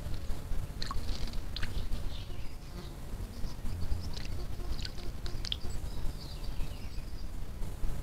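A white-tipped dove bathing in a shallow water basin: a few quick splashes and flicks of water, clustered about a second in and again between four and five and a half seconds, over a steady low rumble.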